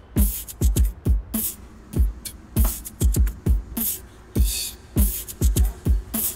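Background music: a beat of deep kick drums that drop in pitch, with sharp snare hits.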